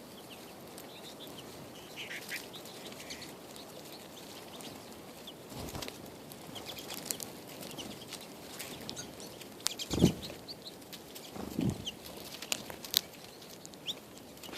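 Birds chirping in short scattered calls, with fluttering wings and a few sharp clicks. Two dull thumps come about two-thirds of the way in and again shortly after, the first being the loudest sound.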